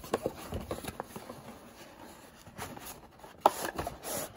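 Handling of a black cardboard watch box: light rubbing and small taps, with one sharper knock about three and a half seconds in.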